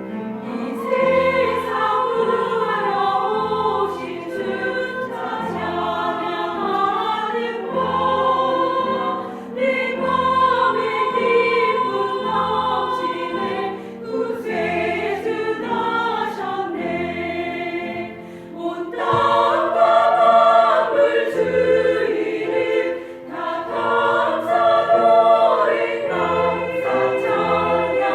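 Small vocal ensemble singing a sacred song in several voice parts, phrase after phrase, with brief breaths between phrases.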